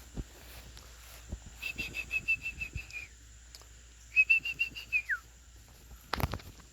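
A songbird singing two runs of rapid, evenly repeated whistled notes, about seven a second, the second run ending in a falling slur. Soft thuds throughout and a short knock near the end.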